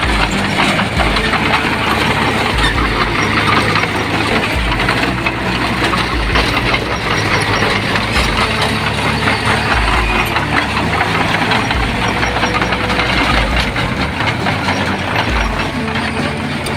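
Heavy diesel construction machinery running steadily, an excavator or bulldozer engine working on site.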